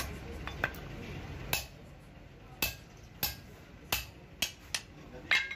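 Hand hammer striking a chisel held against a steel truck brake shoe to work off the old brake lining. About ten sharp metallic blows come at an uneven pace, and the loudest falls near the end.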